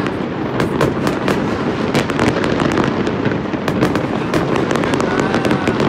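Fireworks display: many shells bursting at once, a dense, unbroken run of bangs, pops and crackles.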